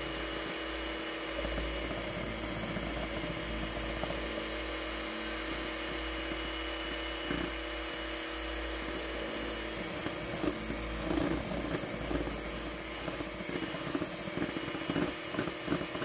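Luxell electric hand mixer running steadily, whipping egg whites into meringue for macaron shells. Irregular short knocks come in the second half.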